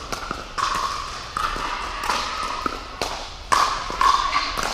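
Pickleball paddles hitting a plastic ball back and forth in a rally: sharp pops about twice a second, each followed by a short ring in the large indoor hall.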